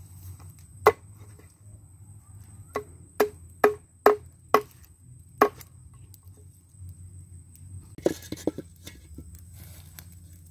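A large knife chopping raw chicken on a wooden plank: about seven sharp chops in the first half, then a quick run of lighter knocks about eight seconds in.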